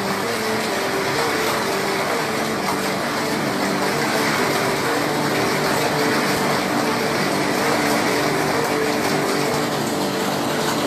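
Heavy hailstorm: hailstones and driving rain pelting the ground, plants and roofs in a steady, dense wash of noise.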